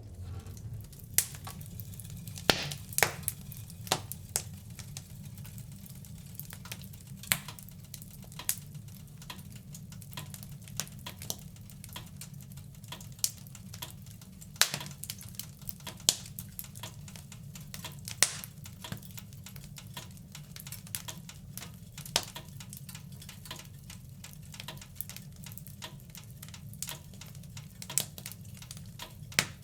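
Wood fire in a fireplace crackling: irregular sharp pops and snaps, some much louder than the rest, over a steady low rumble of the flames.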